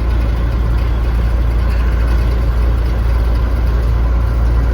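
Gleaner L3 combine's diesel engine running steadily, heard from inside the cab, just after a cold start.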